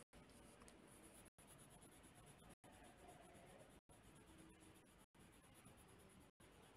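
Faint scratching of a colored pencil shading on paper, the sound cutting out briefly about every second and a quarter.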